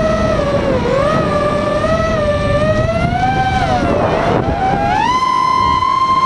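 ImmersionRC Vortex Pro FPV racing quadcopter's brushless motors and propellers whining as it flies, heard from the onboard camera. The pitch wavers with the throttle and dips about a second in. Near the end it rises to a higher, steady whine as the throttle is pushed up.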